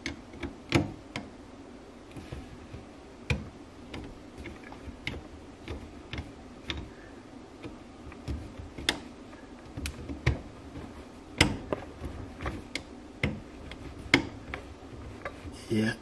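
Irregular clicks and small knocks of a screwdriver turning a jubilee clip (worm-drive hose clamp) to tighten it onto a washing machine's drain hose, with the hose rubbing against the plastic waste pipework.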